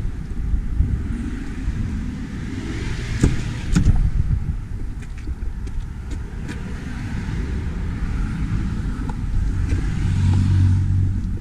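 Steady low rumble from a van, with wind on the microphone, a few sharp clicks about three and four seconds in, and a stronger low hum near the end.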